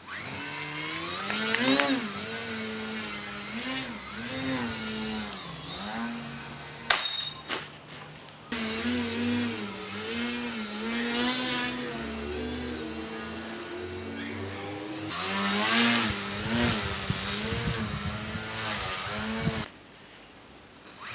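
Small electric RC plane's brushless motor and propeller, a buzzing whine whose pitch keeps rising and falling as the throttle is worked during 3D aerobatics. The sound cuts out briefly about seven seconds in and again near the end.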